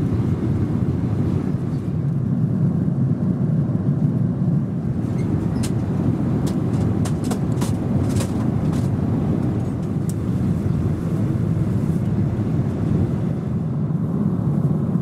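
Boeing 777 cabin noise in cruise: the steady low roar of engines and airflow. A few light clicks sound between about five and nine seconds in.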